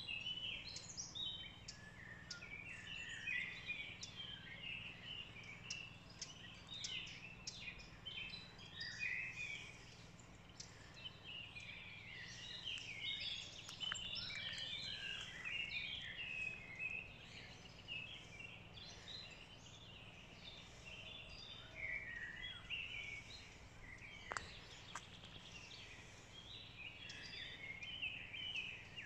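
Several small songbirds singing and calling, a continuous jumble of short high chirps and trills.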